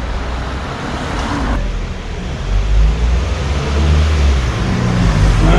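Street traffic: a motor vehicle's engine rumble passing close by, growing louder in the second half.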